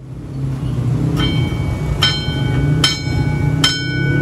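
Railway level-crossing warning bell striking four times, about one strike every 0.8 s, each strike ringing on, over a low rumble that grows louder in the first second.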